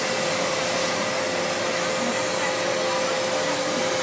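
Loud, continuous hiss of compressed air escaping inside an MTR M-Train car with a faulty door, a steady whistling tone running through it. The leak is the sign of broken equipment, likely more than one faulty part.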